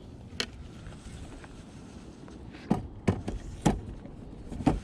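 About five sharp knocks and taps on a fishing boat's aluminum hull, spaced a second or less apart near the end, over a steady low rumble.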